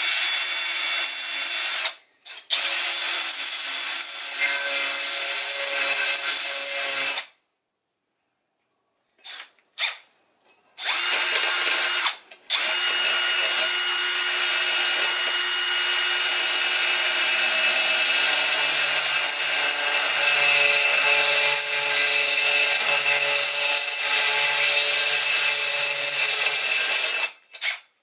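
Milwaukee Fuel cordless drill spinning a reaming bit under light pressure, cutting into a metal part. It runs in bursts: a brief stop about two seconds in, a pause of a couple of seconds around seven seconds in, two short blips, then one long run of about fifteen seconds.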